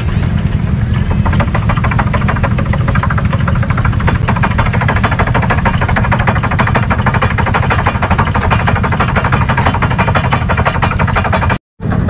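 Belt-driven vintage thicknesser (wood planer) running with a board being fed through it: a fast, dense clatter from the cutters over the steady low drone of the engine and flat belt driving it. The sound cuts out for an instant near the end.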